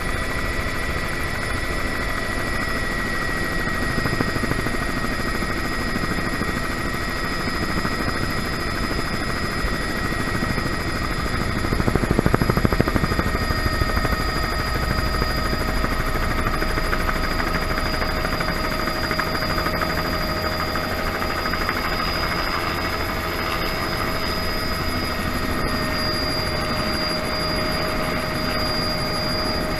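Bell 206B3 JetRanger heard from inside the cabin in flight: the Allison 250 turboshaft's steady high whine over the main rotor's low chop. It swells briefly louder about twelve seconds in, as the helicopter comes down toward the runway.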